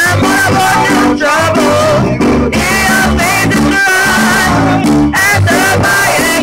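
Live band music played loud through amplifiers: a man singing with a wavering vibrato into a microphone over electric keyboard and a drum kit keeping a steady beat.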